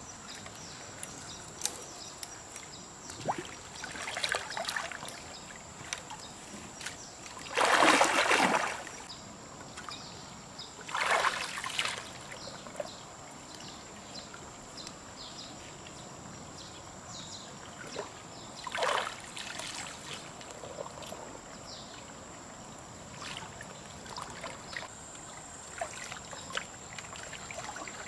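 River water splashing and sloshing in several short bursts as a person wades waist-deep and moves through floating plants, the loudest burst about eight seconds in, with small scattered clicks and snaps between.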